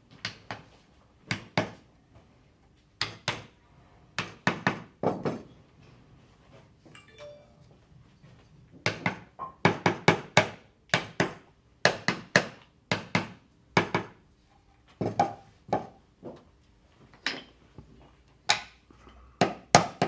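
A steel hammer tapping the wooden parts of a small mortise-and-tenon box together: sharp knocks on wood, mostly in pairs and threes. There is a pause of about three seconds early on, then the taps come faster in the second half.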